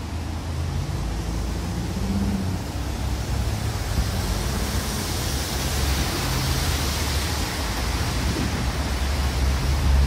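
Strong wind blowing over the microphone: a steady rushing noise with heavy low buffeting.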